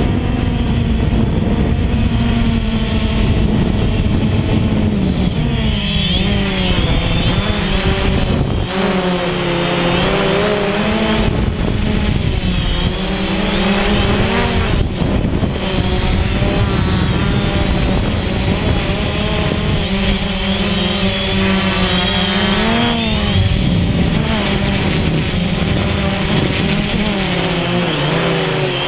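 DJI Phantom quadcopter's electric motors and propellers buzzing in flight, heard close up from the camera on the drone. The pitch wavers up and down every few seconds as the motors change speed.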